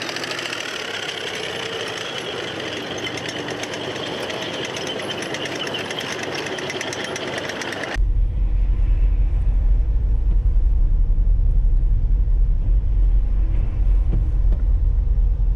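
Armoured military vehicles on the move: engines running with a fast clatter of tracks. About halfway through it cuts suddenly to a heavy low rumble of road and wind noise inside a moving car.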